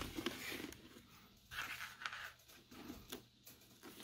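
Faint rustling and scraping of hands handling a motorcycle helmet's foam liner pads and wiring, with a light click at the start.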